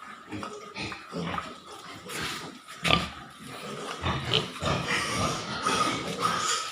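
Pigs grunting irregularly in a pen, with one louder, sharp sound about three seconds in.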